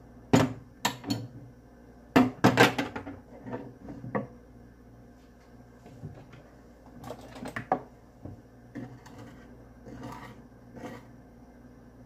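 Clinks and knocks of kitchen utensils and dishes being handled: a cluster of sharp clatters in the first three seconds, more around seven seconds, and a few lighter taps near the end.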